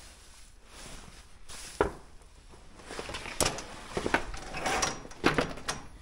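Handling noise from a plastic tarp and windbreak netting on a metal frame: rustling broken by several sharp knocks and clinks, the loudest about two seconds in and again near the end.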